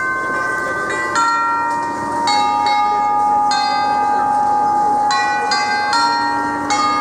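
Bells ringing a slow tune of single struck notes, each ringing on into the next, over the murmur of a large seated crowd.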